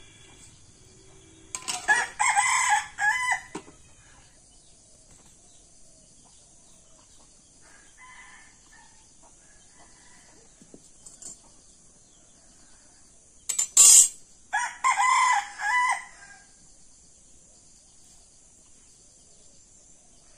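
Rooster crowing twice, about two seconds in and again around fourteen seconds, each crow lasting about two seconds, with a fainter call in between. A sharp knock comes just before the second crow.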